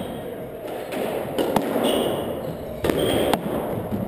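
Squash rally: the ball cracks off racket and walls in several sharp, echoing knocks spaced a few tenths of a second to about a second apart. Short high squeaks of court shoes on the hardwood floor come between them.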